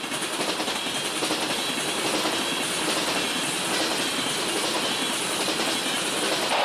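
Freight train of tank cars rolling along the track: the steady noise of steel wheels running on rail.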